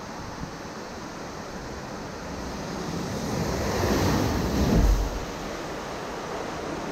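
Steady rushing noise of water running in a water-slide channel, with wind on the microphone, swelling louder between about three and five seconds in.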